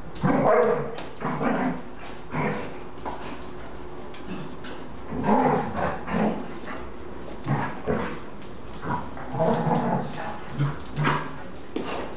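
An Airedale terrier and a dachshund playing, with short yips and barks in bursts: a cluster near the start, another about five seconds in, and several more towards the end.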